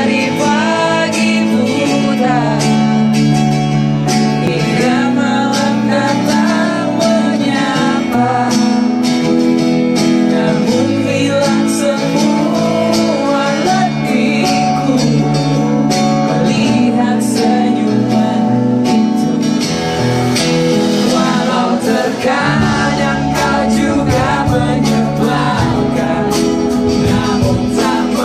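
Live band playing a song: a male voice singing over acoustic and electric guitars. The bottom end fills out with bass about three quarters of the way through.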